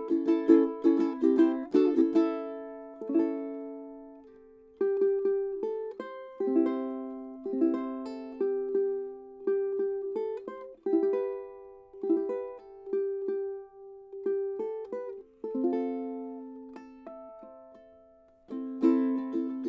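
Koaloha concert ukulele with a Port Orford cedar top and walnut back and sides, played with a bright, punchy tone. It opens with fast strummed chords, then a picked single-note melody from about five seconds in, then ringing chords and brisk strumming again near the end.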